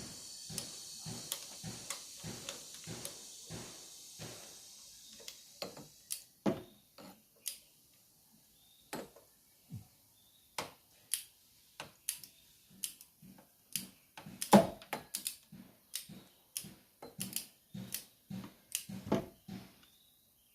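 Hand tools working on metal engine parts. For the first few seconds there are soft, even knocks about three a second with a hiss over them, then scattered sharp clicks and clinks, the loudest about halfway through.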